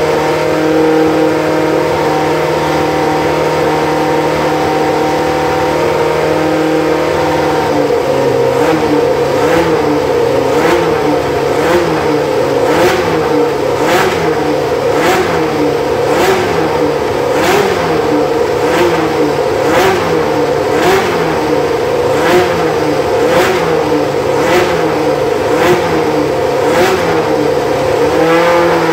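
Williams FW08 Formula One car's Cosworth DFV V8 idling steadily, then from about eight seconds in given short, regular throttle blips, roughly one a second, before settling back to idle near the end.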